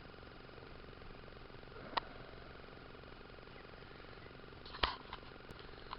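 Steady low hiss with a few sharp clicks: one about two seconds in, and a louder click with a brief rustle just before the five-second mark.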